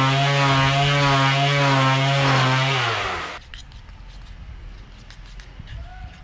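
Electric sheet sander running with a steady buzzing hum against a wooden rail, then switched off and winding down, its pitch falling, about three seconds in. After that, faint light clicks and scrapes of a spatula working metal filler in its tin.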